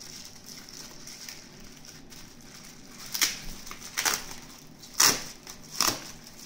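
Bubble-wrap pouch rustling and crinkling as it is opened by hand, with four louder crackly rustles about a second apart in the second half.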